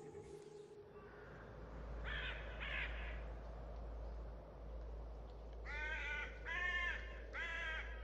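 A crow cawing: two short caws about two seconds in, then three longer caws near the end, over a faint low rumble.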